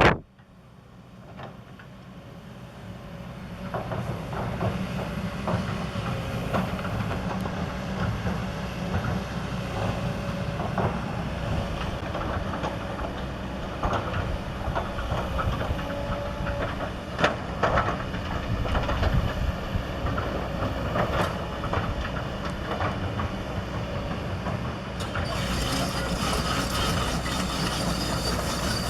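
Kobelco SK200 hydraulic excavator's diesel engine running steadily while the machine works, with several sharp metallic clanks and knocks from the machine. The sound rises over the first few seconds, and a brighter hiss joins near the end.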